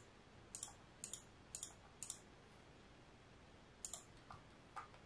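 Faint computer mouse clicks: four single clicks about half a second apart, a pause, then three more near the end.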